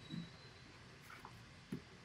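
Quiet room hiss with two soft taps about a second and a half apart: a stylus tapping on a tablet screen while handwriting.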